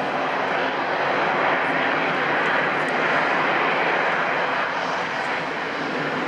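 Antonov An-70's Progress D-27 propfan engines, with counter-rotating propellers, running as the aircraft taxis. The sound is a steady, even rush of propeller and turbine noise with faint steady low tones underneath.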